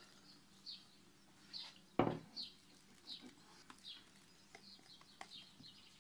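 Chocolate whipped cream dropped into a plastic dish and spread with a metal spatula, giving a soft knock about two seconds in. Faint, short, high falling squeaks repeat throughout.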